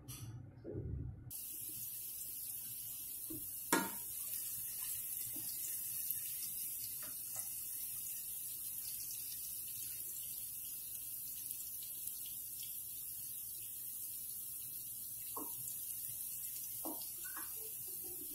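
Sliced onions sizzling as they fry in hot oil in a pan: a steady hiss that starts suddenly about a second in as the onions go in. A sharp knock comes about four seconds in, and a few light knocks near the end.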